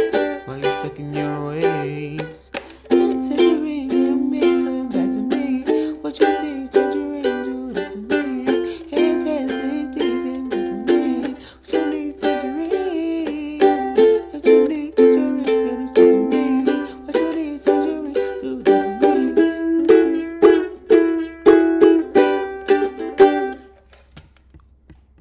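Acoustic ukulele strummed in a steady rhythm, chords ringing, as an instrumental outro without singing. The playing stops about a second and a half before the end.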